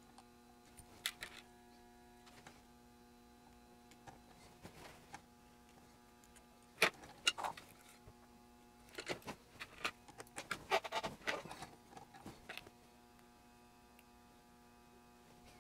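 Small clicks, taps and rattles of a kit circuit board being handled and clamped in a metal bench vise, sparse at first and coming in a busy cluster between about seven and thirteen seconds in. A steady faint electrical hum runs underneath.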